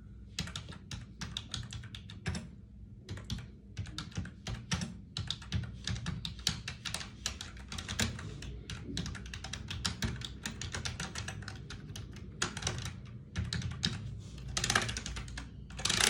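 Typing on a Logitech K480 multi-device Bluetooth keyboard: a rapid, dense run of key clicks with brief pauses. It makes a lot of noise, like a mechanical keyboard.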